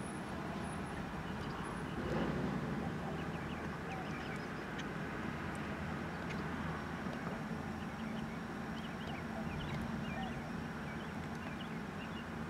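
Street ambience: a steady low rumble of traffic, with birds chirping repeatedly over it, more often in the second half.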